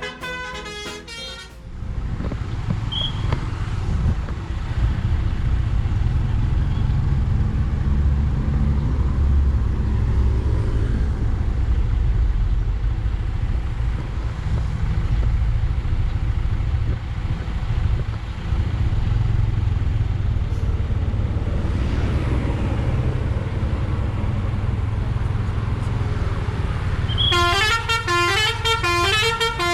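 Basuri V3 multi-tone 'telolet' bus air horn playing a quick tune of stepping notes, which stops about a second and a half in. A long steady low rumble follows, and the horn tune starts again near the end.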